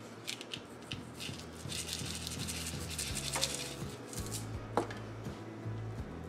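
Fine sugar sprinkles shaken from a small plastic shaker into cake batter: a few short rattles, then a steady hiss of sprinkles pouring for about a second and a half, followed by two sharp knocks.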